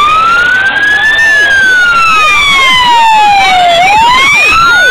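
Fire engine siren on a slow wail, loud and close. Its pitch rises, falls slowly for a couple of seconds, then rises again near the end.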